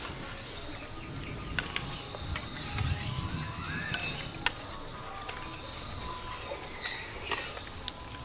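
Banana leaf crinkling and rustling as it is folded into a small parcel by hand, with a few sharp clicks of a metal spoon against a ceramic bowl.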